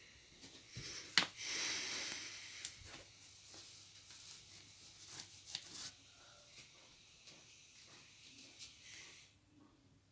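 A person breathing noisily close to the microphone with a steady high hiss, the sign of the breathing problem he means to show off. One loud, long breath comes about a second in, and the hiss stops shortly before the end. Light clicks sound throughout.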